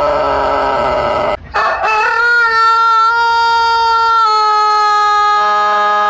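Rooster crowing: a wavering call breaks off about a second and a half in, then a long, drawn-out steady note follows that drops slightly in pitch a little past four seconds.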